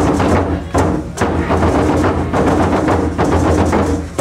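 Japanese taiko drums played in a fast, dense rhythm: deep low drum strokes under rapid sharp strikes.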